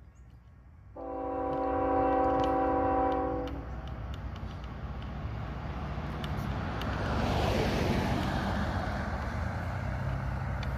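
Locomotive air horn sounding one long blast of about two and a half seconds, a little after the start, over the low rumble of the approaching diesel train. A few seconds later a pickup truck passes on the road alongside, its tyre and engine noise swelling and fading.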